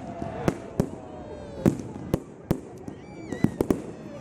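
Fireworks at a public display bursting in an irregular series of about nine sharp bangs, over a steady crackling haze, with a brief high tone about three seconds in.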